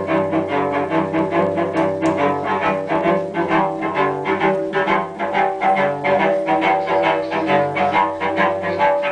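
Cello bowed in a steady rhythm of short, repeated strokes, playing a blues tune.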